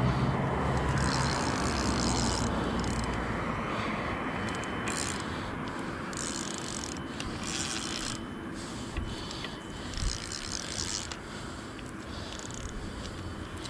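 Spinning reel working in short spurts while a hooked common carp is played: a high-pitched mechanical whirr of the reel and line, stopping and starting several times.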